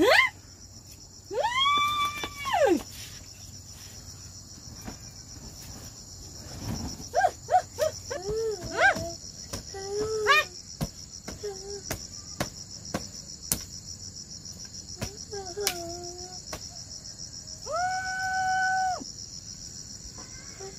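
Steady high-pitched insect chorus throughout, with scattered clicks and knocks. A long drawn-out wailing cry comes about a second in and another near the end, with short bits of voice in between.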